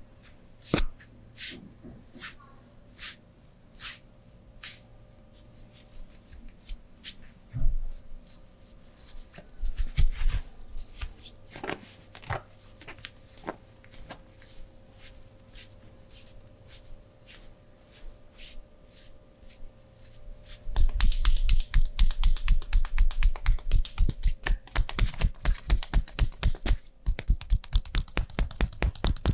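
Hands working on skin in a massage: scattered light taps and clicks, then, about two-thirds of the way through, a sudden fast run of rhythmic hand slaps, several a second, as in percussive tapping massage.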